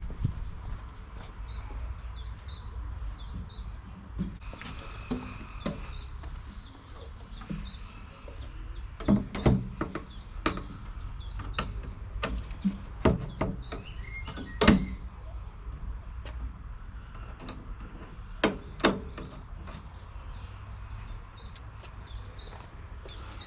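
A small bird chirping repeatedly in the background, in quick runs of short high notes. Over it come a handful of sharp knocks and clicks, the loudest around the middle, with a steady low rumble underneath.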